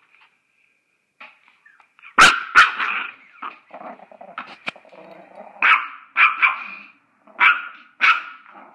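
Yorkshire terrier barking in a string of sharp barks, about seven in all, starting about two seconds in, with growling between them.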